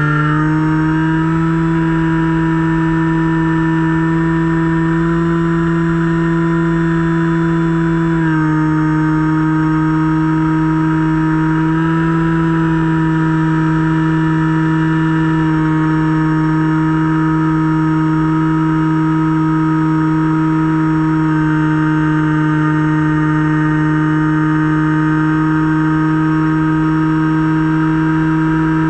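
Finwing Penguin RC plane's electric motor and propeller running in flight, picked up by its onboard camera as a steady whine over a low rush of wind. The pitch dips slightly about eight seconds in and rises a little again a few seconds later.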